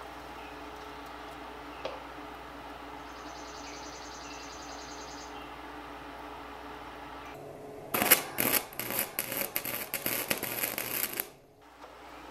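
Electric arc welding: a loud, irregular crackling arc for about three seconds, starting about eight seconds in and cutting off sharply, as sheet steel is tacked. A steady low electrical hum runs before the arc strikes.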